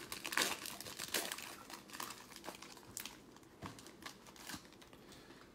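Foil trading-card pack wrapper being torn open and crinkled in the hands, the crackling densest in the first second or two, then thinning to scattered crinkles.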